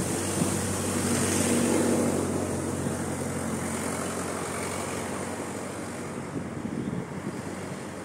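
A motor vehicle passing on a road, its engine hum and tyre noise swelling about a second or two in and then slowly fading, with wind noise on the microphone.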